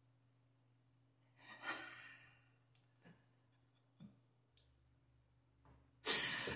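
A woman's sigh, a breathy exhale about a second and a half in, then a few faint clicks, and near the end she bursts out laughing loudly.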